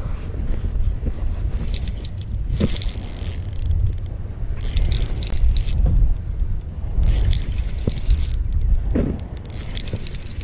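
Spinning reel being cranked in short spells of rapid, rattling clicks, about five bursts each roughly a second long, over a steady rumble of wind on the microphone.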